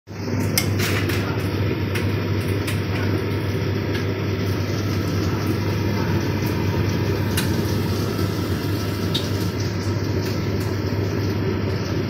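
Hoover Dynamic Next tumble dryer running with clothes tumbling in the drum: a steady motor and fan hum with a low drone, broken by occasional sharp clicks.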